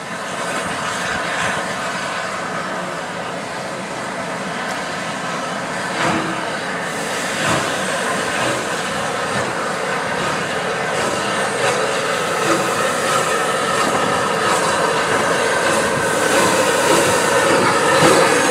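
Steam locomotive 34053 Sir Keith Park, a Southern Railway light pacific, approaching at low speed with a train of coaches: a steady hiss of steam with wheels clicking over rail joints. It grows steadily louder as it nears.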